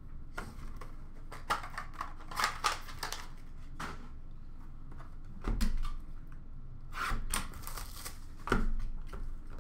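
Trading cards and their packaging being handled: scattered clicks and short rustles, with two dull knocks, one about halfway through and one near the end.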